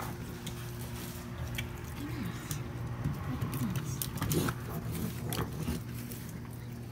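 Raccoons feeding at close range: chewing with small clicks and pats on the wooden deck, and a few short falling calls about two to four seconds in, over a steady low hum.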